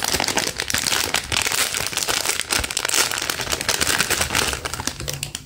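Thin clear plastic packaging bag crinkling and rustling continuously as hands handle it and open it to get a squishy toy out.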